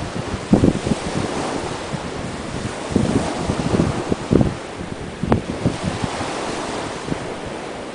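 Strong wind buffeting the microphone in irregular low gusts, over small sea waves breaking and washing on the shore.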